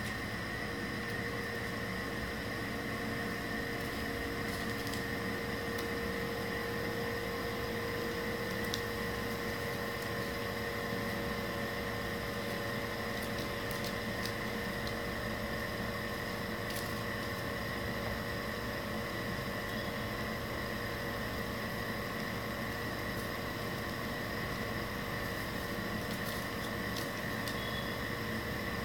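Steady hum and hiss of a running appliance, even throughout, with a few faint clicks as paper is handled.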